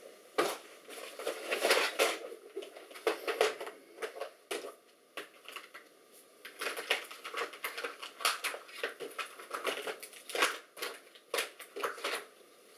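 Handling noise: irregular rustling and crinkling with light clicks, as of things being rummaged through and picked up.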